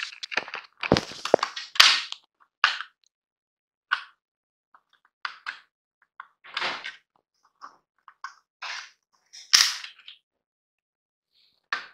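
Plastic latches of a Citroën C3 Aircross instrument cluster housing clicking and snapping as they are pried open with a plastic spudger to free the circuit board. The clicks and knocks come irregularly: a quick cluster in the first two seconds, scattered ones after, and one loud snap near the end.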